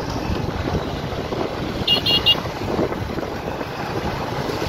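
Motorcycle engines running on the move, with wind buffeting the microphone as a steady rumbling noise. About two seconds in there are three quick, high-pitched beeps.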